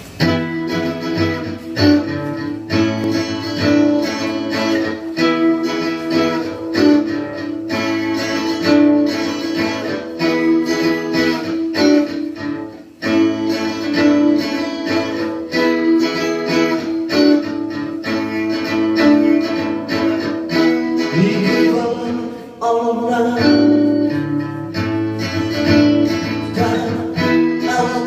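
Guitar music with singing: a run-through of a song played on guitar.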